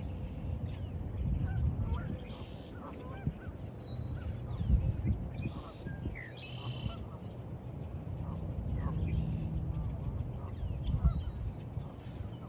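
Geese honking several times, with small birds chirping and a steady low rumble underneath.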